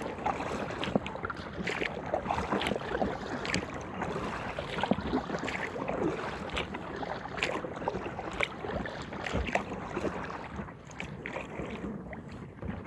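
Inflatable kayak being paddled: repeated splashes of the paddle blades dipping and dripping, over a steady wash of moving water.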